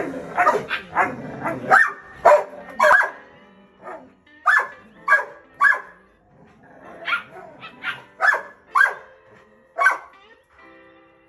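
Belgian Malinois puppy barking again and again, short high barks coming in quick runs with brief pauses between them.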